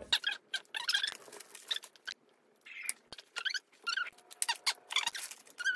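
Fast-forwarded audio: children's voices and the handling of kit parts sped up into high, squeaky chipmunk-like chatter broken by quick clicks.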